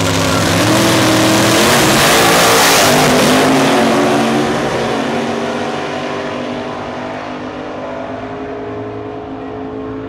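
Two Pro Mod drag cars, one a big-block Ford Thunderbird, launching side by side at full throttle. The engine pitch climbs and drops back at a gear shift about two seconds in. The sound is loudest around two to three seconds in, then fades as the cars run away down the strip.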